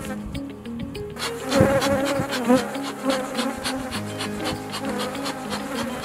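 Honeybees buzzing around an opened hive, the buzzing swelling about a second in, over quiet background music.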